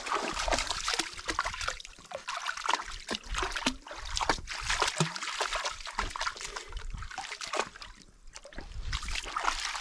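Water splashing and trickling in irregular bursts, with a short lull about eight seconds in.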